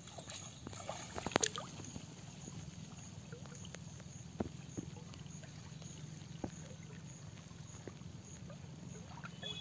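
Pond water sloshing and a few small splashes and clicks as a fishing net is worked and lifted in the shallows, over a steady low background hum.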